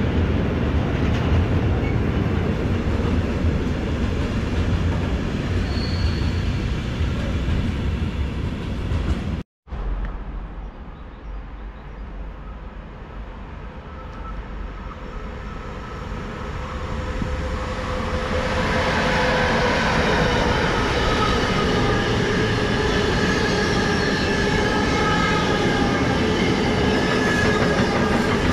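Trains at a railway station: a train running past with a loud steady rumble, then, after an abrupt cut, a quieter stretch as a train approaches, growing louder from about two-thirds of the way in with several steady high-pitched squealing tones from its wheels and brakes.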